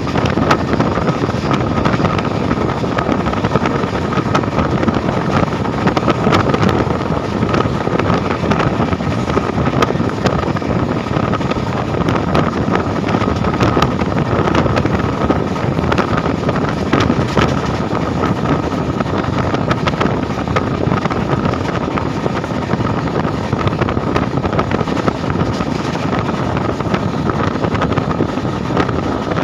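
Steady running noise of a train at speed, heard from on board: wheels rumbling on the rails, wind buffeting the microphone, and a constant scatter of clicks and rattles with a faint steady whine.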